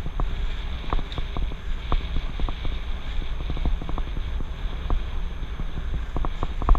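Wind rumbling on the microphone of a helmet-mounted camera on a moving bicycle, with scattered light clicks and rattles throughout and a quick cluster of them near the end.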